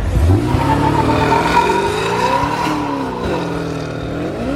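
A car doing a burnout: the engine revs rise and fall over a steady, high tyre squeal.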